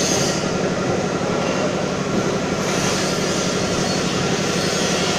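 Trumpf CNC punch press running, its rapid punching strokes merging into a steady, dense mechanical clatter. A hiss in the upper range grows louder about two and a half seconds in.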